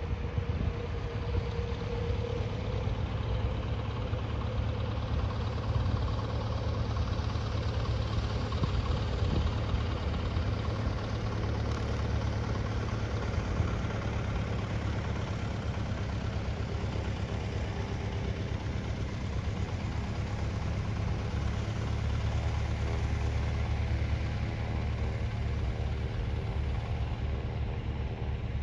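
An engine running steadily at low revs, with a constant low rumble and no change in level.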